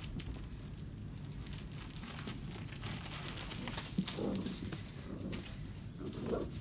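Puppies scuffling over a plush toy in wood shavings, the shavings rustling, with two short low puppy vocalizations: one about four seconds in and one just before the end.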